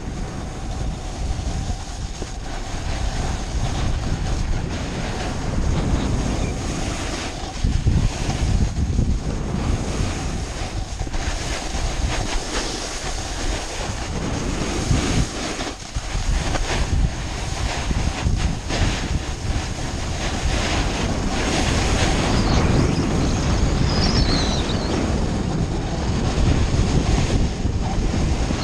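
Wind buffeting the microphone of a snowboarder's head-mounted camera at speed, mixed with the snowboard's edge scraping and hissing over packed snow, rising and falling in surges with the turns.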